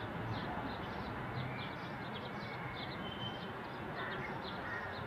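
Small birds chirping: short calls repeated several times a second over a steady background hiss, with one brief held whistle-like note about three seconds in.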